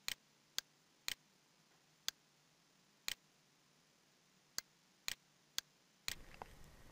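Computer mouse clicking: about a dozen faint, sharp clicks at irregular intervals, several coming in quick pairs like a button pressed and released.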